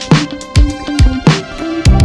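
Background music with a steady beat of sharp drum hits and deep bass notes that drop in pitch.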